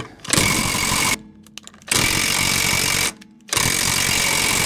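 Draper cordless impact wrench hammering on a seized wheel nut in three bursts, the last the longest, as it is run forward and backward to clear the thread.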